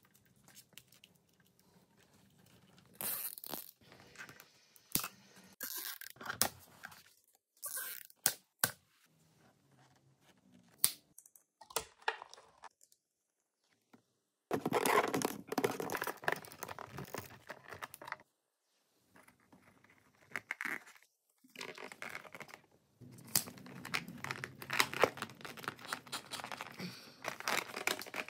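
Hands handling plastic tubing and wires close up: irregular rustling, crinkling and scraping with scattered clicks, denser about halfway through and again near the end.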